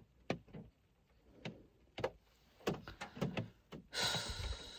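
Scattered raindrops tapping irregularly on the car's roof and glass, heard from inside the cabin. About four seconds in comes a long sigh, the loudest sound.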